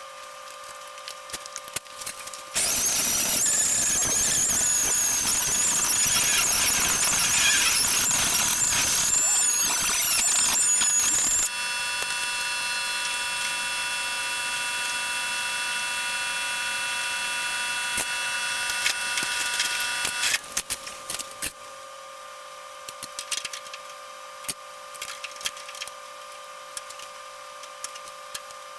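A power grinder working the edge of a sheet-metal patch panel, with a loud, wavering high squeal for about nine seconds. It then carries on steadier and quieter for about nine more seconds and stops, followed by light taps and clicks of metal being handled.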